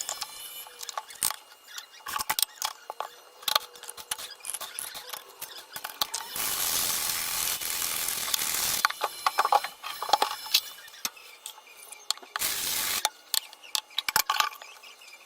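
Kitchen handling noise: many scattered clicks and knocks of things being picked up and set down, with a steady rushing hiss for about two and a half seconds in the middle and a shorter burst of it near the end.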